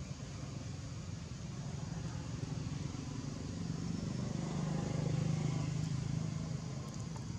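Low, steady engine drone, swelling from about four seconds in and easing off near the end, like a motor vehicle passing.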